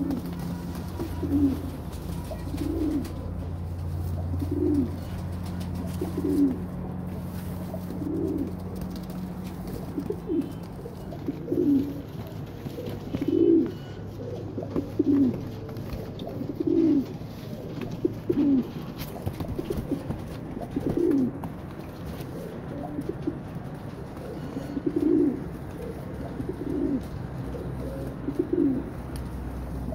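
Domestic pigeons cooing: a short, low coo repeated about every one and a half to two seconds, with a brief pause a little after the midpoint.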